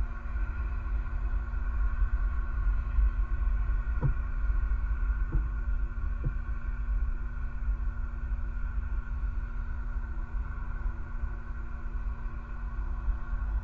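Outdoor ambience on an eagle-nest camera's microphone at night: a steady low rumble with a constant hum over it, and three faint ticks about four, five and six seconds in.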